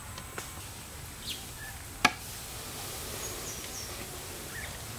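A single sharp metal knock about two seconds in, from a long metal ladle striking the large aluminium cooking pot as cooked khichdi is scooped out. Faint bird chirps over a steady background hiss.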